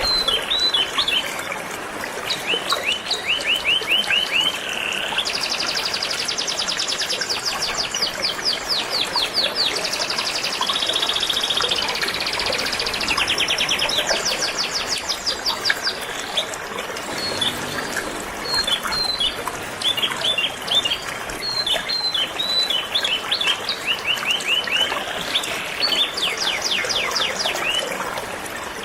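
Canary singing in long, rapid trills of repeated high notes mixed with short chirps, phrase after phrase, over the steady rush of flowing river water.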